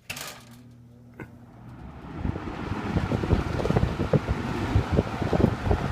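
A 1970s EXL by Hunter seven-bladed 20-inch box fan switched on to high speed: a switch click, a low motor hum, then a rising rush of air as the blades spin up. The blast of air buffets the microphone.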